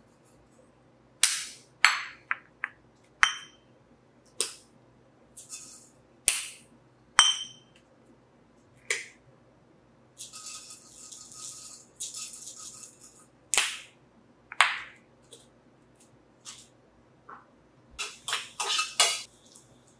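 Glass spice jars and their plastic caps being handled, opened and set down: a series of sharp clinks and knocks, some with a short glassy ring, with a softer rustling stretch about ten seconds in and a quick cluster of knocks near the end.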